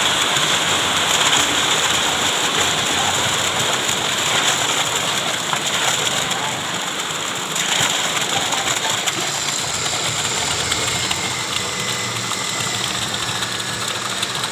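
Concrete mixer truck's diesel engine running while it discharges, with wet concrete sliding down a long chute in a steady rushing, rain-like noise.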